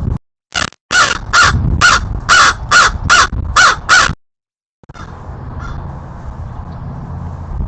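Crow cawing: a quick run of about nine loud caws over some three and a half seconds, which stops abruptly, followed by a steady low outdoor rumble.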